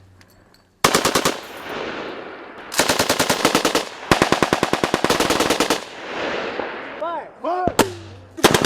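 Automatic machine-gun fire in rapid bursts, the first starting just under a second in, each burst a second or more of fast evenly spaced shots trailing off into an echoing tail. A few short rising and falling whines come about seven seconds in, before another burst near the end.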